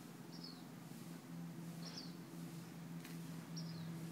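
A small bird chirping: a short, high, falling note repeated at uneven gaps of about a second to a second and a half, over a steady low hum.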